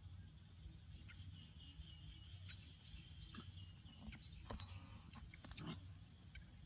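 Near silence: a low steady hum, with a faint thin high tone held for about three seconds and a few soft clicks.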